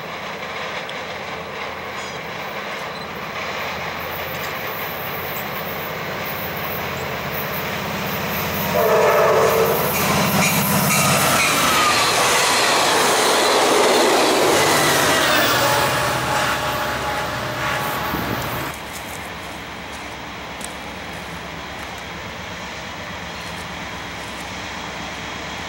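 Amtrak passenger train led by an EMD F59PHI diesel locomotive approaching at speed and sounding its horn about a third of the way in, the horn's pitch sliding down as it passes, then the loud rush of the coaches going by. The sound cuts off suddenly about three-quarters of the way through, leaving a quieter steady rumble.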